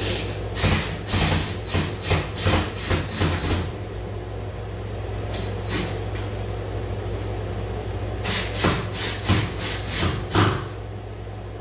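Cordless drill-driver driving screws at an electrical outlet box in short bursts, two to three a second, for the first few seconds. It pauses, then runs another set of bursts about eight seconds in, over a steady low hum.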